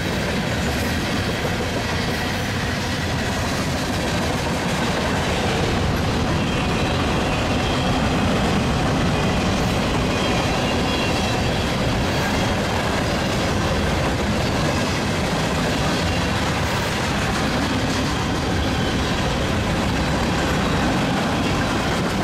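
Freight cars of a Union Pacific mixed freight train rolling past, a steady rumble of wheels on rail that holds at one level throughout, with faint high tones from the wheels in the middle stretch.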